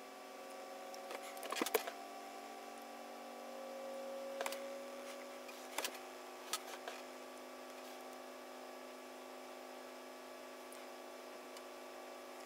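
Faint steady electrical hum with a few small sharp clicks: a cluster just under two seconds in, then single clicks at about four and a half, six and six and a half seconds.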